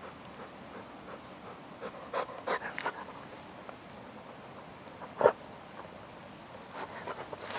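Golden retriever gnawing on a wooden stick: scattered crunches and cracks of wood between its teeth, with one loud sharp crack about five seconds in.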